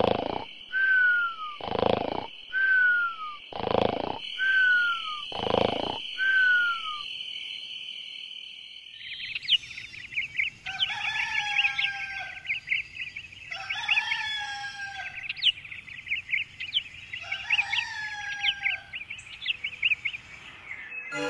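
Cartoon snoring: about five snores roughly two seconds apart, each a rasping inhale followed by a falling whistle on the exhale, over a steady insect chirr. About nine seconds in this gives way to a dawn chorus: birds chirping and a rooster crowing three times.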